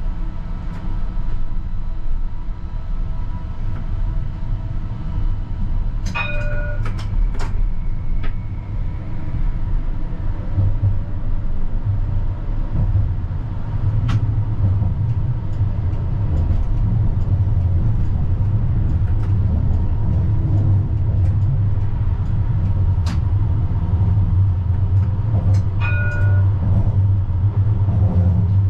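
CAF Urbos 100 tram running, heard from the driver's cab: a low rumble of wheels on rails with a steady hum, growing louder as it gets under way after about ten seconds. Short bell-like rings sound about six seconds in and again near the end.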